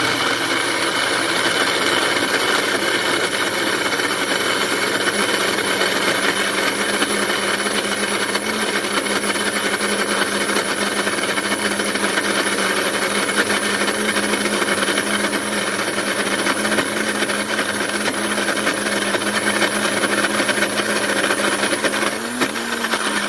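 Magic Bullet blender motor running at full speed, loud and steady, grinding thawed corn kernels into a thick batter.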